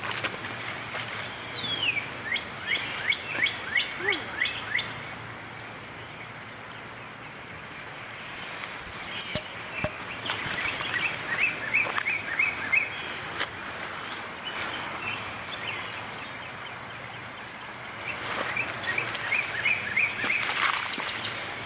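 A small stream babbling steadily, with a songbird singing three runs of quick repeated downslurred whistled notes, about three a second, over the water.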